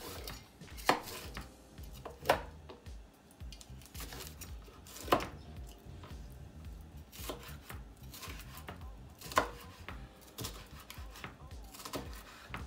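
Chef's knife chopping a red bell pepper on a wooden cutting board: irregular knocks of the blade striking the board, a few of them much louder than the rest.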